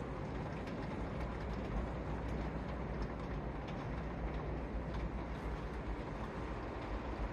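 Hurricane winds and heavy rain: a steady, dense rushing noise that never lets up, heaviest in the low rumble.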